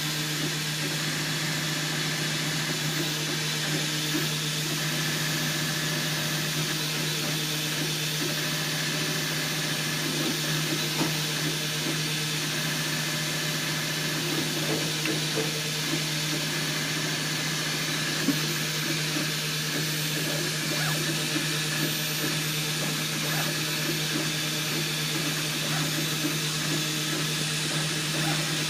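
3D printer running, with a steady machine hum and a wavering whir from its motors.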